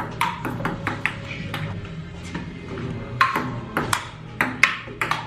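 Ping pong ball clicking back and forth off the paddles and the table in a rally, a string of sharp hits, with music playing underneath.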